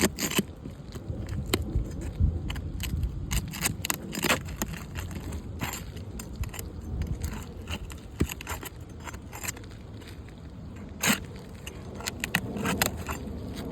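Irregular metallic clicks and short scrapes of a hand tool working against asphalt roof shingles, as nails are pried out.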